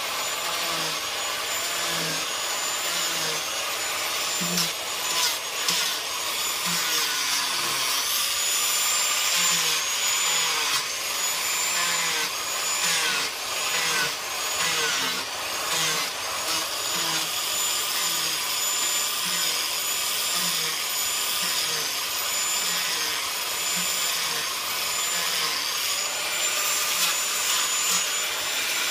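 Electric rotary carving tool running at high speed and cutting into a wooden statue, with a rough grinding rasp. Its high whine dips in pitch and recovers again and again, about once a second, as the bit bites into the wood under load.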